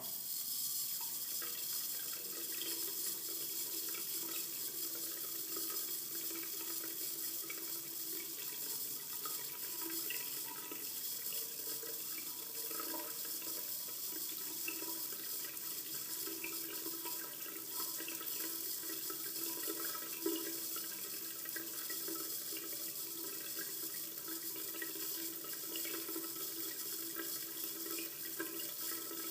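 Water running steadily from a faucet into a commercial bathroom sink, a constant splashing rush.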